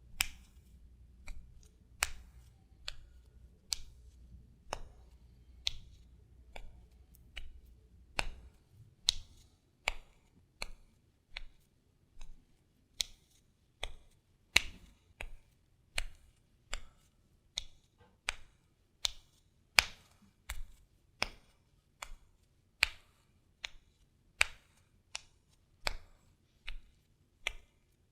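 Bare feet walking on concrete: separate soft slapping footsteps about one every three-quarters of a second, some louder than others.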